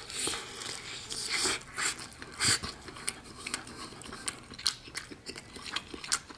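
A person biting into and chewing a jerk chicken drumstick close to the microphone, giving many irregular short clicks of mouth and teeth.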